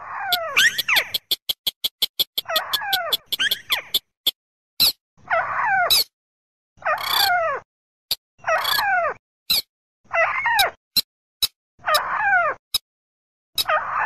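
Bird-luring recording of rail calls, white-browed crake and slaty-breasted rail: a series of loud, falling, nasal call notes, each under a second long, repeated about every second and a half. Sharp single clicks fall between the calls, with a fast run of clicks about a second in.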